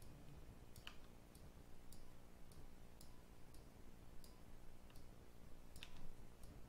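Faint, scattered clicks of a computer mouse and keyboard keys, about one every half second at irregular spacing.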